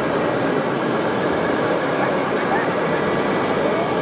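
Steady mixed din of a crowded model-show hall, with a faint rising whine twice in the second half.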